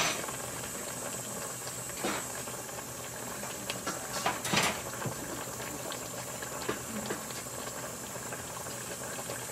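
Stainless steel pot of coconut-milk stew with bamboo shoots and shrimp simmering on the stove, giving a steady bubbling hiss. A few short knocks come about 2 and 4.5 seconds in.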